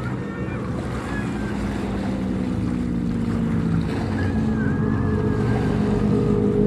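Motorboat engine running, a steady drone that grows gradually louder as it draws nearer.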